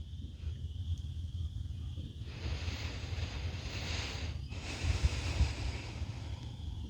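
A slow, deep breath close to the microphone: a breath in of about two seconds, then a breath out of about two seconds. Low wind rumble on the microphone runs underneath.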